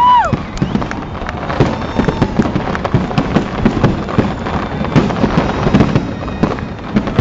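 Fireworks finale: a dense barrage of bangs and crackling shells, with a whistling firework's falling whine right at the start.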